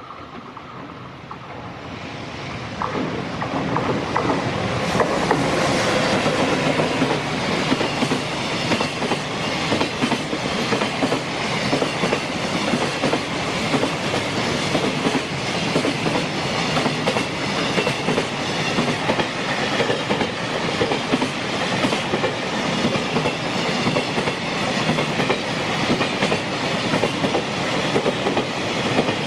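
Electric-hauled JR Freight freight train approaching and passing close by. Its wheels clatter rhythmically over the rail joints as the wagons roll past.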